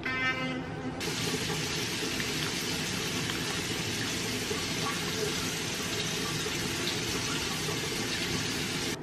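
An electric toothbrush buzzes briefly, then a faucet runs steadily and cuts off abruptly near the end.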